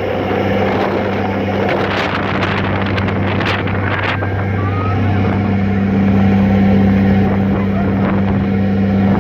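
Passenger ferry's engines droning steadily under way, a low even hum, with wind buffeting the microphone and a few crackles of it about two to four seconds in.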